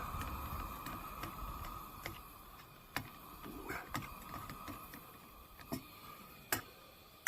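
Faint scattered clicks and light knocks, as of camp cookware and utensils being handled, over a steady hiss that fades away in the first two seconds.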